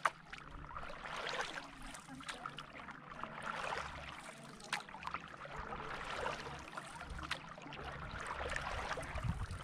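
Water splashing and swishing from a paddle board being paddled across a calm lake, rising with each stroke about every second or two, with water lapping at the board.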